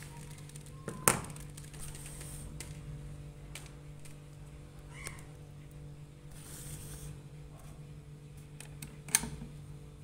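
Refrigerator compressor running with a steady low electrical hum, after being switched on with its newly fitted start relay and overload. Two sharp clicks stand out, one about a second in and one near the end.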